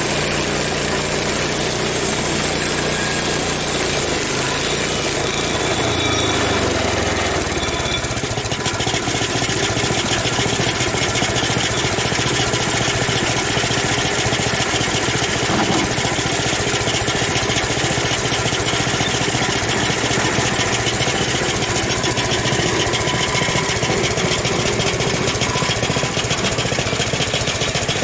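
Frontier OS23 bandsaw mill's gas engine running. About six to eight seconds in, its pitch sinks and it settles into a dense, steady roar as it works through the ash log. The engine is down on power, which the owner suspects comes from stale gas.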